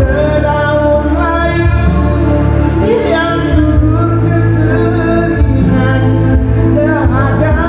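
A man singing karaoke into a microphone, his voice amplified through the speakers over a loud backing track with heavy bass.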